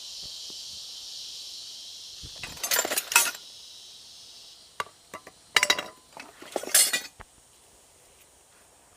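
Steel parts of a Rabaconda portable tire changer clanking and clinking together as it is assembled, in two bursts of clatter a few seconds apart. A steady high insect drone runs underneath and stops about halfway through.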